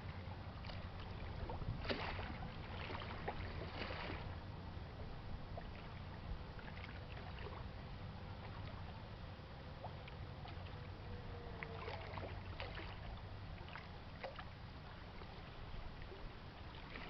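Faint, steady low drone of a freighter's engines, with scattered small clicks and a faint tone that dips slowly about ten seconds in.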